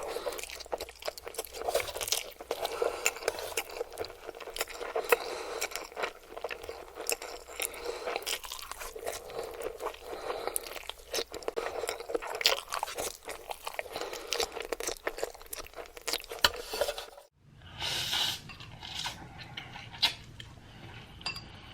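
Close-miked mukbang eating sounds: dense, wet chewing and crunching of food in the mouth. About 17 seconds in, they cut off abruptly, and a quieter stretch of sparser chewing follows.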